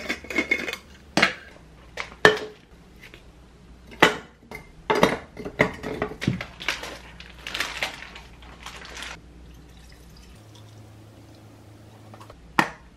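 Clinks, clicks and knocks of a glass mason-jar blender jar being handled: its lid unscrewed and mango pieces dropped in, with one more sharp click near the end.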